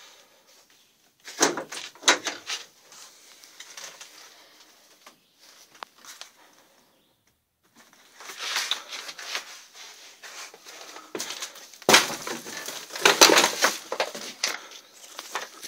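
Crunching footsteps and scraping on debris and leaf litter, with a few sharp knocks: two about a second and a half in, and the loudest around twelve and thirteen seconds in.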